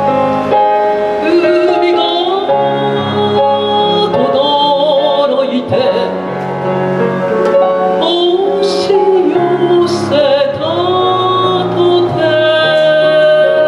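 A woman singing a chanson live into a microphone over an instrumental backing, with vibrato on her held notes.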